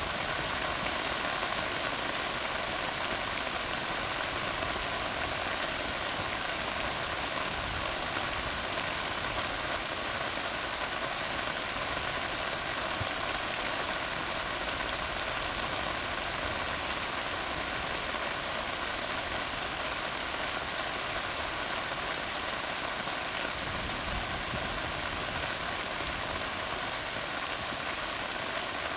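Steady rain falling on a tar road: an even hiss with scattered sharp ticks of individual drops.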